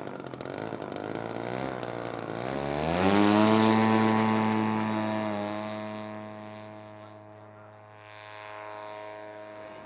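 Radio-control model airplane's propeller engine revving up to full throttle about three seconds in, then holding a steady note that fades as the plane flies away.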